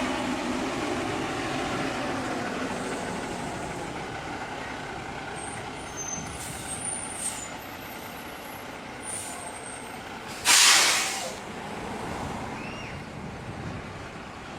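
Heavy vehicle's engine running, slowly fading, with a sudden loud hiss of air about ten and a half seconds in: an air brake releasing.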